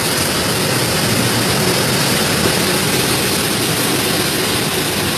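Storm water rushing steadily and loudly.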